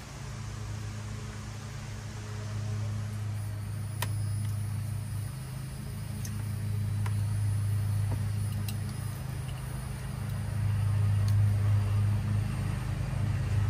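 A steady low mechanical hum that grows somewhat louder near the end, with a few light clicks over it.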